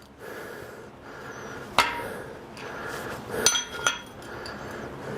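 Hammer blows on metal: a sharp strike about two seconds in, then two ringing metallic clanks near the three-and-a-half-second mark, from driving a seized piston out of a rusted Chevy 350 small-block whose piston rings are stuck in the bore.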